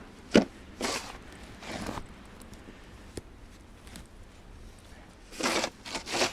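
Snow shovel being pushed and dug into deep snow: a sharp hit about half a second in, then a few short scraping crunches, with another cluster near the end.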